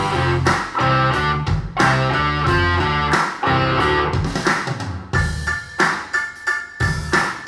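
Rock music with electric guitar, bass and drums, played back through a pair of B&W Vision V201 bookshelf speakers and picked up by a microphone in the room. About five seconds in, the arrangement drops to a sparser, punchy rhythm of short repeated hits.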